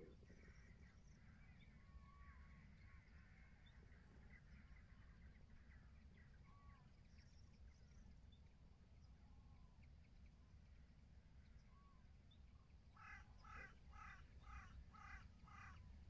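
A flock of common cranes calling at a distance: scattered short calls, then about three-quarters of the way through a rhythmic run of about seven louder calls, roughly three a second. A steady low rumble lies underneath.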